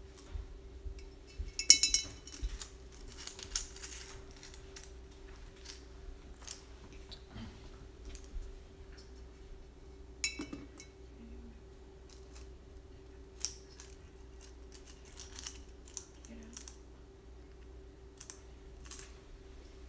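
Coins clinking as they are dropped one at a time into the slot of a painted owl piggy bank and jostled in a small container of change, in scattered clinks with a quick flurry about two seconds in.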